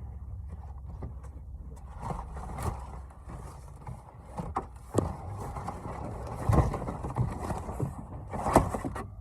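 Scattered clicks, taps and rustles of handling while a passage is being looked up, over a steady low rumble. The louder knocks come about five, six and a half and eight and a half seconds in.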